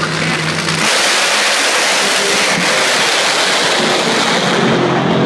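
Two nitro Funny Car drag racers at full throttle down the strip: a lower engine drone jumps about a second in to a much louder, ragged blast that fills every pitch and holds steady.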